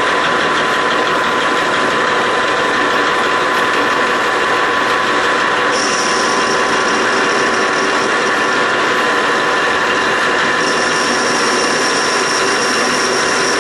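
Metal lathe running steadily while turning a 4140 annealed steel bar, the tool being fed in by hand. A thin high tone joins the running sound about six seconds in, drops out, and comes back near the end.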